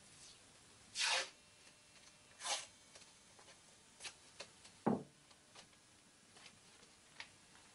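Two brief scraping sounds, then a sharp knock about five seconds in, with scattered faint ticks and clicks in between.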